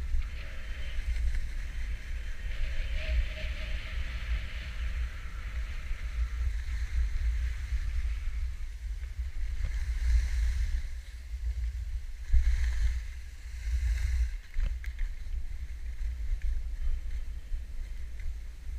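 Wind buffeting the microphone of an action camera on a moving snowboarder, a steady low rumble, with the hiss of the snowboard sliding over snow that swells at times.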